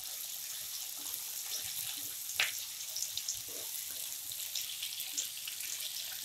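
Cut green chillies sizzling in hot mustard oil in a kadhai as they are stirred with a spatula: a steady hiss with small crackles, and one sharper click of the spatula against the pan about two and a half seconds in.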